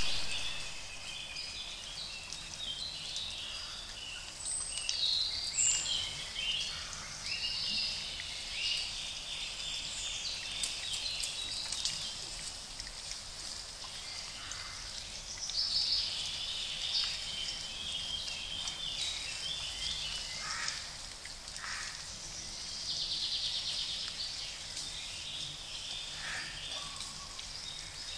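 Birds singing, many overlapping chirps and short phrases, over a steady background hiss.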